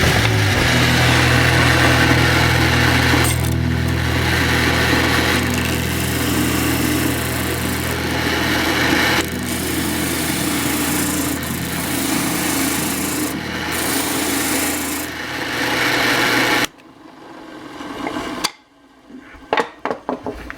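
A power tool sanding wood: a steady motor hum under a continuous rasping, scraping sound. It cuts off abruptly about three-quarters of the way through, followed by a few short knocks.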